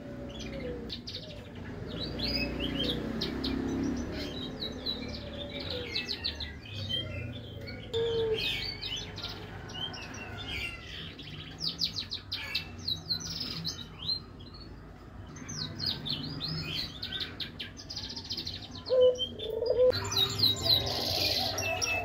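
Hybrid siskin mule finch singing steadily: runs of quick chirps and fast rattling trills with short gaps between phrases.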